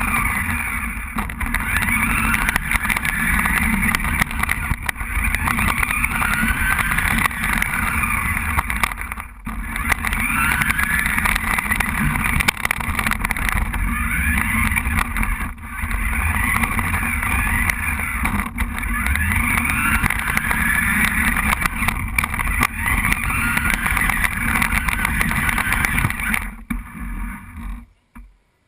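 Remote-controlled toy car driving, heard close up from a camera mounted on it: its electric motor whines steadily, the pitch rising and falling as it speeds up and slows. It cuts off near the end.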